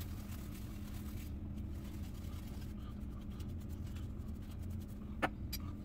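Faint scratchy swishing of a Simpson Commodore X3 badger shaving brush working up lather, over a steady low hum. One sharp click comes about five seconds in.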